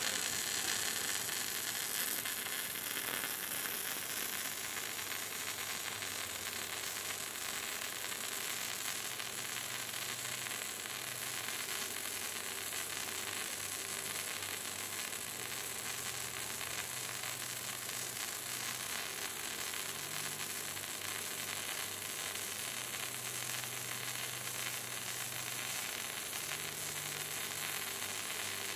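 Wire-feed (MIG) welding arc laying a butt weld on thick steel tube: a steady crackling sizzle. A faint low hum runs underneath and steps up and down in pitch now and then.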